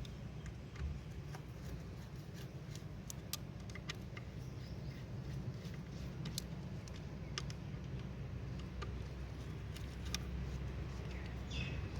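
Scattered light metallic clicks and taps of tools and parts being handled during clutch work, over a steady low hum.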